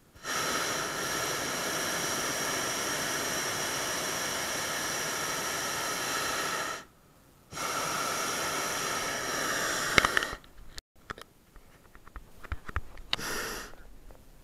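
Hot air balloon's propane burner firing: a steady roaring hiss that starts abruptly, breaks off for a moment about seven seconds in, and fires again for about three seconds more. A sharp click comes as it stops, followed by faint knocks.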